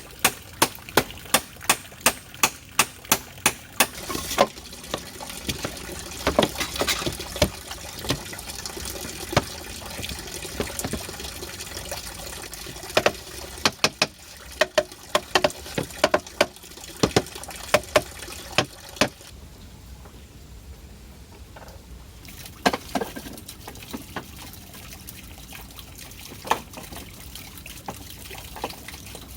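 A steady hiss of running water, with a series of sharp knocks: evenly spaced at about three a second at first, then irregular, and the water noise thins briefly past the middle.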